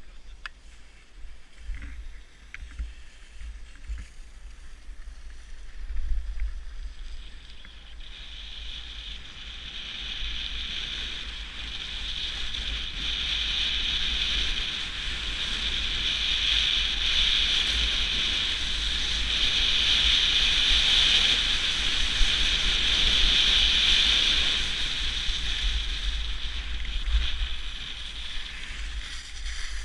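Skis sliding fast over packed snow, a steady hiss that builds about eight seconds in and eases near the end, with wind buffeting the camera's microphone throughout.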